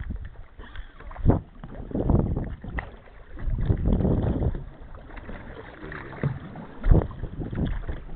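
Choppy water slapping and sloshing against a small boat's hull in irregular surges, with wind on the microphone.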